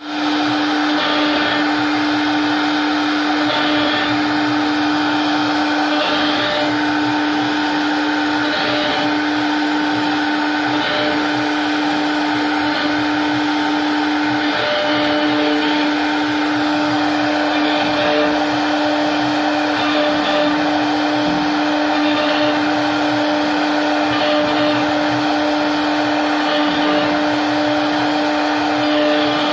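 CNC router spindle running and cutting wood: a steady high motor whine under a cutting hiss, with a short rise in the cutting noise about every two seconds as the bit passes through the wood.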